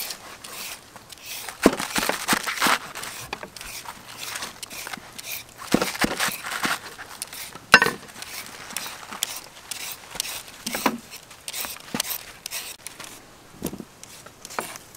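Cleaver cutting through a head of napa cabbage on a wooden chopping block: irregular crisp crunches and knocks of the blade on the board, the sharpest one about eight seconds in.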